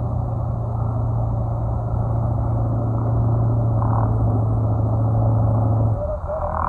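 Vehicle engine running with a steady low rumble, cutting off abruptly about six seconds in.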